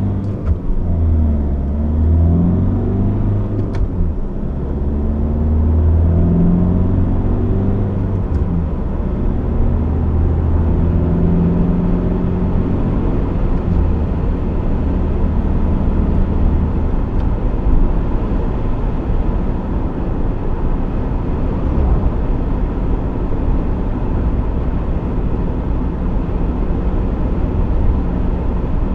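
Honda CR-V's 1.6 i-DTEC four-cylinder turbodiesel pulling under acceleration, its note rising and dropping several times over the first half. After that a steady rumble of tyre and road noise at speed takes over.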